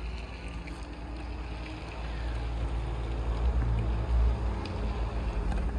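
A vehicle engine idling, with wind rumbling on the microphone; the low rumble grows louder about two seconds in.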